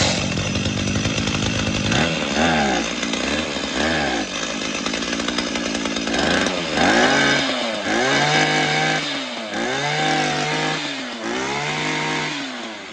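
Hitachi T48 21cc two-stroke brush cutter engine just started for a test run. It runs unevenly for a couple of seconds, then is revved up and let drop about six times, each rev a rising then falling whine.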